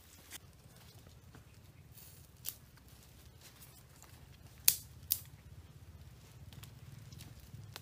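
Small campfire under a stick grill crackling: a few sharp pops, the loudest pair about midway, over a low steady rumble.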